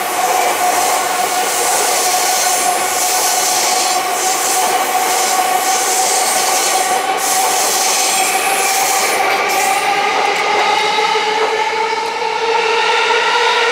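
Electric commuter train running past on the rails, with a steady whine that rises slowly in pitch over rolling rail noise; the rolling noise thins out after about ten seconds while the whine carries on.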